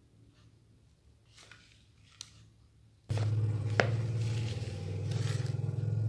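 A few faint scrapes, then about three seconds in a steady low motor hum starts abruptly and runs on, with one sharp click shortly after it starts.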